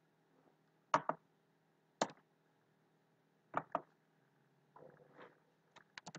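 Computer keyboard keystrokes: single sharp key clicks about one and two seconds in and a pair a little later, then a quick run of keystrokes near the end, over a faint steady low hum.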